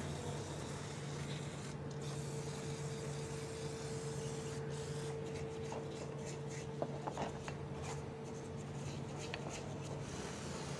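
Aerosol contact cleaner hissing in spurts as it is sprayed onto a metal EGR valve housing to clean off carbon, with a few light knocks of the part being handled about seven seconds in. A steady low hum runs underneath.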